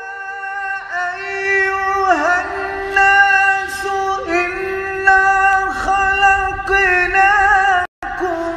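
A man's voice reciting the Quran in slow, melodic tartil style: long held notes with wavering, ornamented turns of pitch. The sound drops out for a split second near the end.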